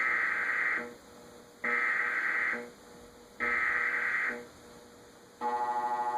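Emergency Alert System SAME header: three short bursts of buzzy digital data tones, each about a second long and a little under two seconds apart, that open a Required Monthly Test. About five and a half seconds in, the steady EAS two-tone attention signal starts.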